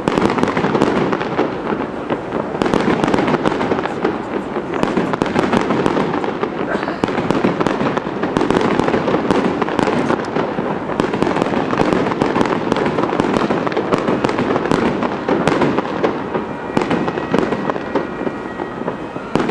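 Japanese aerial fireworks display: a dense, continuous barrage of bursts and crackling reports in rapid succession, with no let-up.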